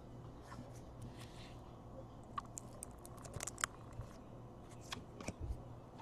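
Faint scattered clicks and ticks of trading cards being handled and flipped through by hand, with a quick cluster about three and a half seconds in.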